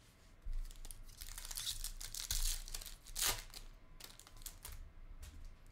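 A foil trading-card pack being torn open and its wrapper crinkled by hand. An irregular run of rustles, loudest about three seconds in.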